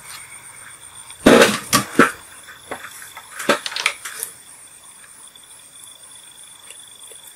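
Scraping and tapping of a soldering iron and fingers on an LED bulb's aluminium board as a wire is soldered onto its F pad. The sounds come in a short cluster between about one and four seconds in.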